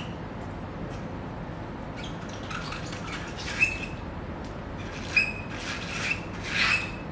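Short squeaks and rubbing of a cloth wiping clean the small touch-up paint bottles and brush. There are several of them from about two seconds in, the strongest near the end, over a steady room hiss.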